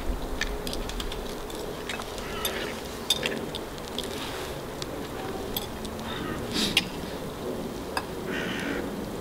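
Metal spoons and forks clinking and scraping against paella pans as food is served and tasted, with scattered sharp clinks.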